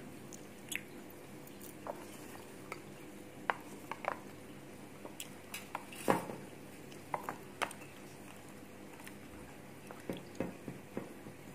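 Scattered small clicks and taps of a rubbery toy keychain and its metal key ring being handled against a cardboard box, the loudest knock about six seconds in.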